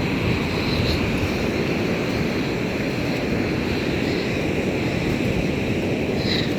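Steady rush of wind buffeting the microphone over the sound of surf on the beach, even throughout.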